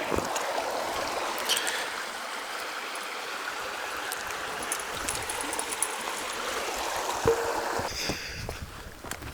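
A stream running steadily, an even rushing hiss of flowing water that fades off about eight seconds in.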